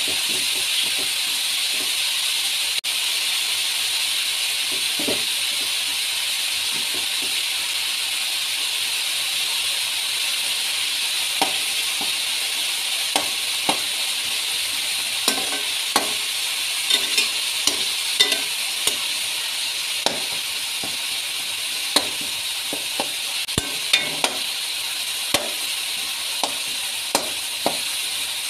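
Minced meat with onions, garlic and ginger sizzling in hot oil in a metal pot, a steady hiss. From about ten seconds in, a metal spatula stirs and scrapes the mixture, with frequent sharp knocks against the pot.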